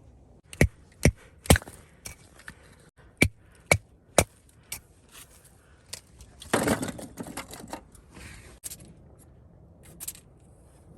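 Sharp knocks: three in quick succession, then three more about two seconds later, followed by a scraping rustle lasting about a second.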